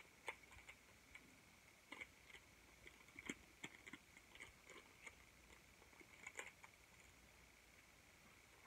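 Faint crinkling and tearing of a small ramen seasoning packet being opened by hand: scattered soft clicks and rustles.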